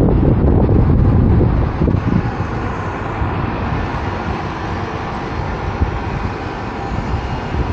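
Wind buffeting the microphone of a car-roof-mounted camera while driving, with road and traffic noise beneath. The low wind rumble is heavy for about the first two seconds, then eases to a steadier drone.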